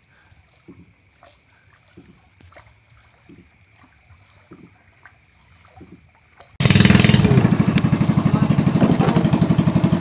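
A small boat engine comes in abruptly about two-thirds of the way through and runs loud with a fast, even putter. Before it there is near-quiet with a few faint knocks and steady high insect chirping.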